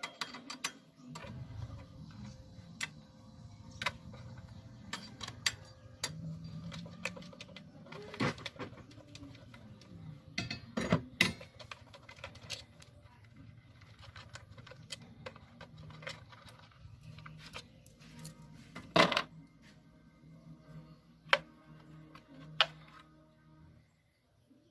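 Metal tools clinking and clattering in sharp, irregular clicks over a low, wavering hum.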